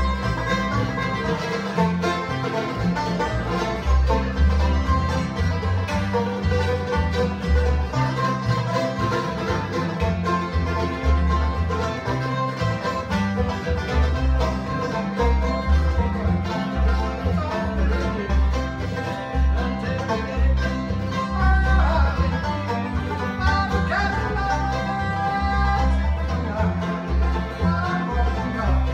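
Acoustic bluegrass jam: five-string banjo picking with acoustic guitar, and an upright bass keeping a steady beat.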